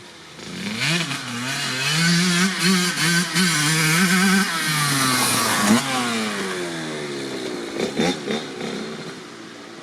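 1997 Kawasaki KX80 80cc single-cylinder two-stroke dirt bike, with a DEP silencer, revving hard with repeated throttle blips. Its pitch then slides down and the sound fades, with a couple of short blips near the end.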